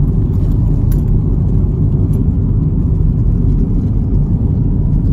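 Car driving along a paved road, heard from inside the cabin: a steady low rumble of tyres and engine, with a couple of faint ticks.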